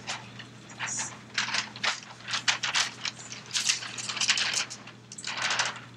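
Large sheet of flip-chart paper rustling and crackling as it is handled and unrolled, in quick irregular crinkles, over a faint steady electrical hum.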